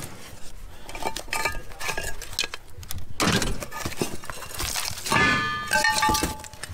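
Rusty steel brake drums and brake shoes clinking and knocking together as they are handled in a cardboard box, with one ringing metal clang a little after five seconds in.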